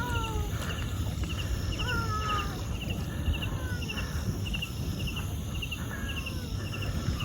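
A frightened pet animal gives several short, falling whining cries while being carried through floodwater. Behind them runs a regular high chirping, about two a second, over a steady low rumble of water.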